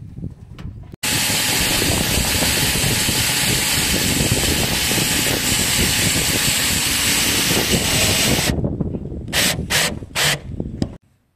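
Drill driver driving a roofing screw with a rubber washer through sheet-steel cladding. One long continuous run of about seven seconds, then three short bursts as the screw is snugged down.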